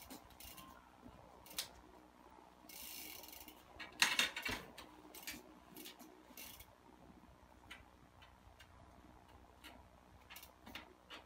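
Mountain bike held in a trackstand on concrete: scattered ticks from the freehub ratchet and drivetrain as the pedals rock back and forth, with a short hiss about three seconds in and a louder knock as a wheel drops onto the concrete about four seconds in.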